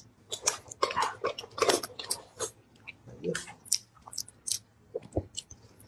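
Close-miked eating sounds: irregular chewing, crunches and clicks as a metal spoon digs into a boiled ostrich egg.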